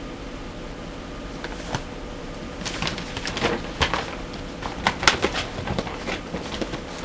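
A run of irregular clicks and knocks, starting about a second and a half in and thickest in the middle, over a steady low hum.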